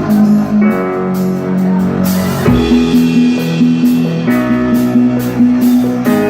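Live rock band playing the opening of a song, guitar chords ringing and changing every second or two.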